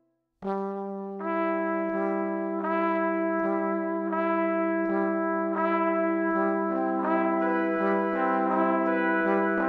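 Background music: brass instruments playing a slow melody over a held low note, starting about half a second in after a brief silence.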